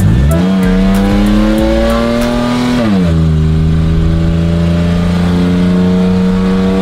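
Engine of a replica Lamborghini accelerating hard: the pitch climbs for about three seconds, drops sharply at a gear shift, then holds and slowly rises again in the next gear.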